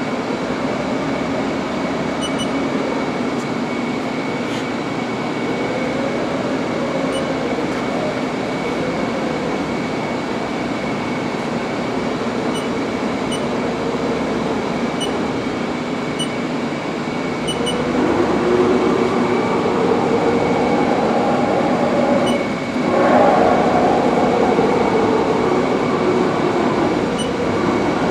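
Haas TM-1 CNC vertical mill running its axes through their travel: servo motors and ball screws whir steadily with a high constant whine, the pitch sliding as the moves speed up and slow. The machine gets louder about two-thirds of the way in, with a brief dip a few seconds later.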